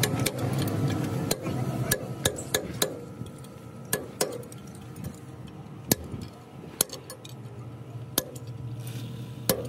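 Sharp metal-on-metal clinks, about a dozen at irregular intervals, as a steel bar is knocked and levered against a Fiat 480 tractor's brake drum and axle hub.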